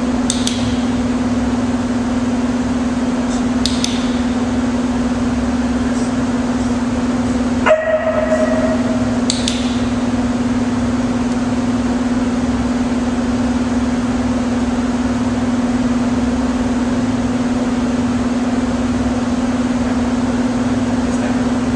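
Steady mechanical hum at one low pitch, with a brief squeaky tone about eight seconds in and a few faint light clicks.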